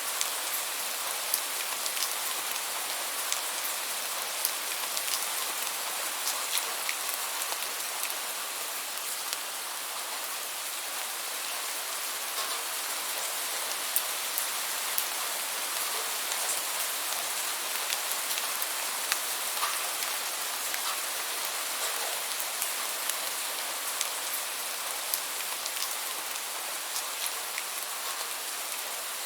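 Steady rainfall: an even hiss of rain with many individual drops ticking sharply on a surface, scattered irregularly throughout.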